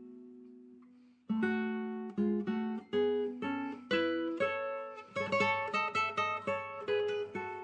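Background music: an acoustic guitar plucking a slow melody. A held note dies away, and the picking resumes a little over a second in.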